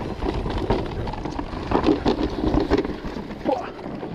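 Electric mountain bike running down a rough trail: wind buffets the action camera's microphone over a constant clatter of quick rattles and knocks from the bike over the ground, louder about two seconds in.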